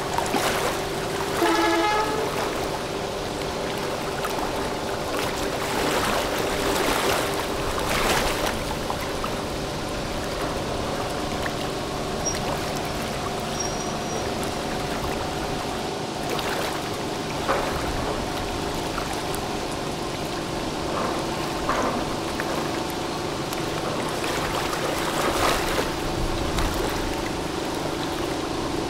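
Tugboat's diesel engines running with a steady drone over churning, rushing water from its propeller wash as it pushes against a container ship's hull, with a few scattered knocks.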